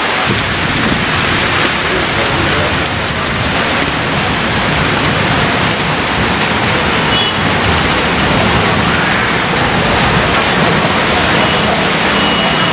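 Heavy rain pouring down, a loud steady hiss with no let-up.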